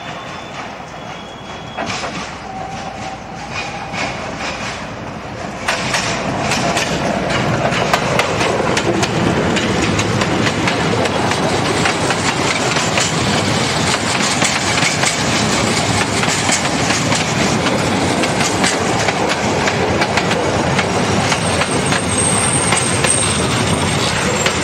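Metre-gauge diesel-hauled train passing close by: it grows suddenly louder about six seconds in as the locomotive nears, then the wheels clatter over the rail joints as the wagons and coaches roll past.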